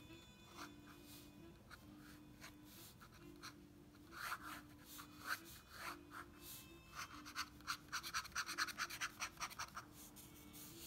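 Fountain pen nib scratching on sketchbook paper. Scattered short strokes come first, then from about seven seconds in a quick run of hatching strokes, about six a second.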